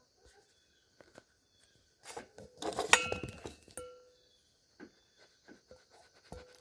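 Steady chirring of insects, broken about two seconds in by a burst of rustling and knocks from the handheld phone being jostled, with a couple of brief high-pitched tones near three seconds and a few light clicks afterwards.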